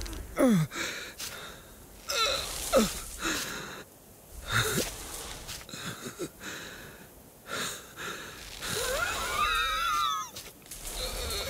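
An animated sheep's vocal efforts: breathy wheezes and gasps, and several falling groans. Near the end comes a longer wavering, quavering whine.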